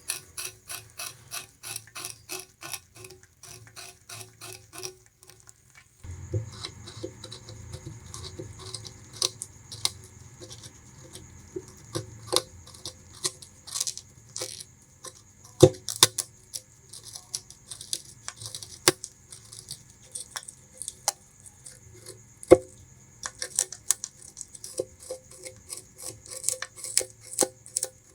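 Bamboo rat gnawing and chewing sugarcane: rapid, even crunches, about three or four a second, then more irregular chewing with two loud sharp cracks in the middle. A low steady hum comes in underneath about six seconds in.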